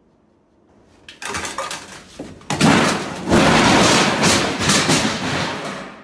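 Loud clattering crash of a stack of metal boxes and a small folding table being knocked over, with a sharp impact about two and a half seconds in and clattering that goes on for a few seconds.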